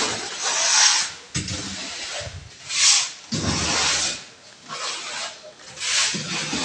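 Irregular bursts of rustling, rubbing noise on a handheld phone's microphone as it is carried, each starting suddenly, a second or two apart.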